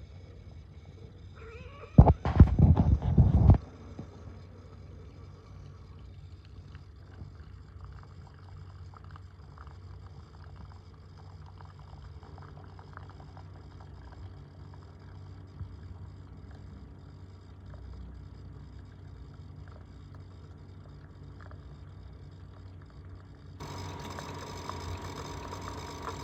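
Keurig K-Compact single-serve coffee maker buzzing and rattling loudly for about a second and a half, then a steady low hum, while the machine fails to dispense water. Near the end a hiss and a steady higher tone join in.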